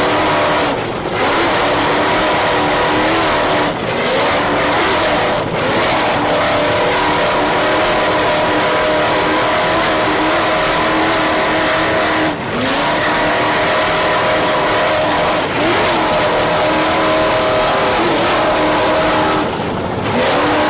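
Offshore racing powerboat engines running hard, a loud steady drone whose pitch briefly dips and climbs back several times.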